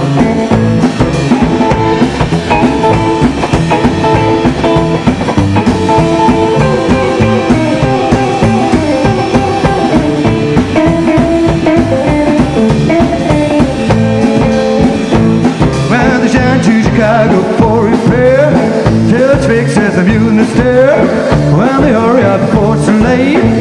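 Rockabilly band playing an instrumental break: electric guitar lead over upright bass and a drum kit, with some bent guitar notes in the second half.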